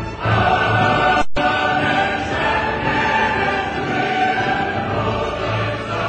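Choral music with sustained sung voices, dramatic and operatic in character. It cuts out for an instant about a second in.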